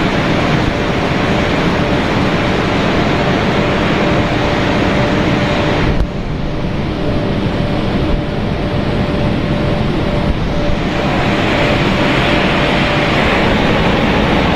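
Steady, loud noise of a running snack pellet extrusion production line: machinery hum with a constant high tone through it. The sound turns duller abruptly about six seconds in and brightens again near the end.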